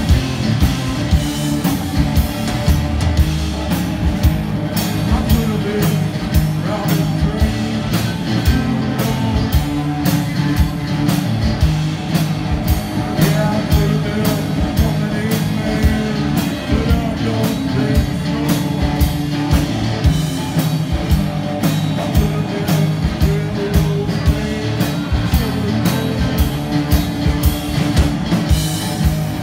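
Live band playing: amplified electric guitar over a steady drum-kit beat.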